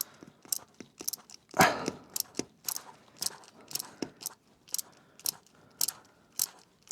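Short, sharp metallic clicks at fairly even spacing, about two a second, from a hand tool working a hose clamp on a tractor's coolant hose. A brief rustle comes about one and a half seconds in.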